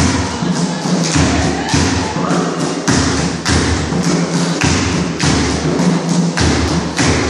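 Large hand drums beaten in a steady rhythm, a deep thump a little under twice a second, accompanying a dance.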